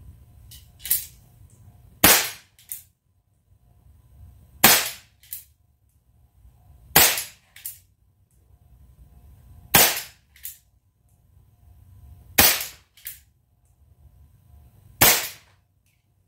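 Crosman 357 Four .177 CO2 revolver, freshly resealed, firing six shots at a steady pace, a sharp pop every two and a half seconds or so. Each shot is followed about half a second later by a fainter click.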